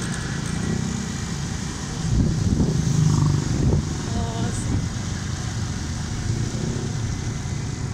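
Motorcycle engine running under wind noise on the microphone, swelling louder for a couple of seconds about two seconds in.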